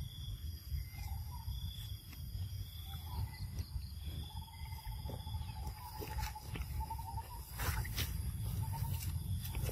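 Outdoor background with a steady low rumble. A faint, thin, wavering call or whine is drawn out for about three seconds through the middle, with a few soft clicks near the end.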